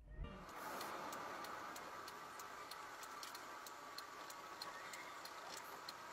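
A car's indicator ticking evenly, about three clicks a second, over the steady hum of the car's cabin.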